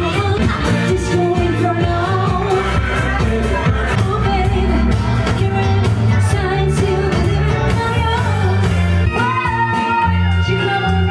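A woman singing a pop song live into a microphone over amplified instrumental backing with a steady, repeating bass line.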